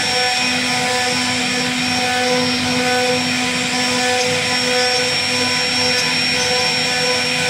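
CNC router spindle running at speed with its bit cutting wood, lowering the flat background of a carved door panel. A steady high whine over continuous cutting noise, with a lower hum that drops out briefly a couple of times.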